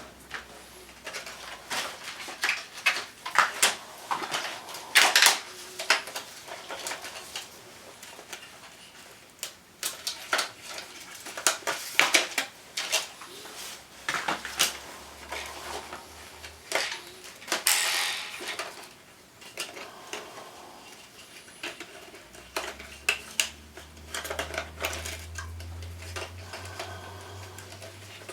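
Hands handling the plastic panels, parts and screws of a wall-mounted air conditioner being taken apart: irregular clicks, knocks and light clatter. A faint low hum comes in twice, the second time from a little past the middle to the end.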